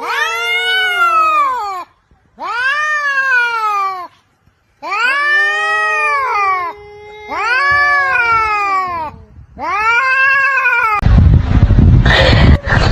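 A cat giving five long, drawn-out meows in a row, each rising and then falling in pitch. Near the end a loud, noisy sound of another kind cuts in.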